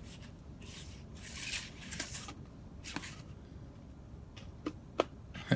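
Paper fast-food sandwich wrapper rustling and crinkling as it is handled and unwrapped, followed by a few light clicks and taps.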